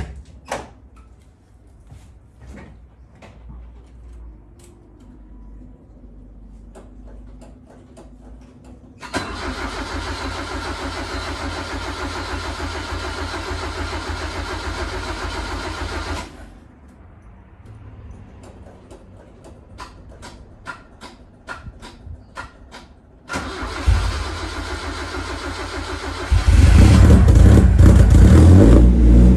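Holden Gemini TE's 1.6-litre four-cylinder engine being cold-started: a door clunk at the start, then the starter cranks for about seven seconds without the engine catching. After a pause with scattered ticking it cranks again, and about 26 seconds in the engine fires and runs loudly, the revs rising and falling.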